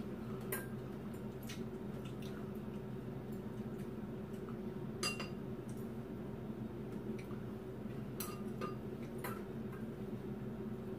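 Air conditioner running on high with a steady low hum, under scattered light clicks and taps of chopsticks and a ladle against a pot and bowls.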